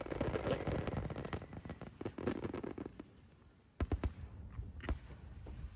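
Aerial fireworks crackling: a dense run of rapid pops that dies away about three seconds in, followed by a few separate sharp bangs just before four seconds and once more near five.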